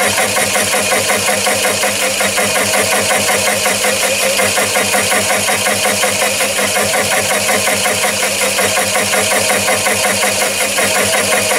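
Chinese mini lathe running at about 300 RPM while a 3-inch HSS slitting saw cuts a slot into a bar as the cross slide is wound in slowly: a steady machine running sound with a regular pulse about five or six times a second.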